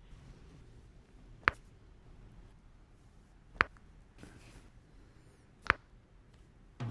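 Joints cracking during a chiropractic adjustment: three sharp pops about two seconds apart over faint room hiss.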